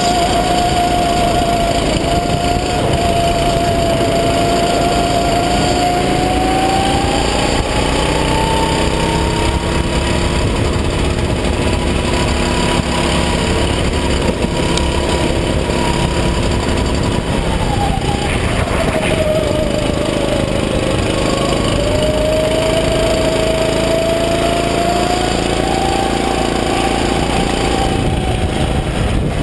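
Rental go-kart's small engine running hard on track, heard close from the driver's seat. Its pitch climbs and holds high for several seconds, drops sharply about two-thirds of the way through, then climbs again, over a steady rushing noise.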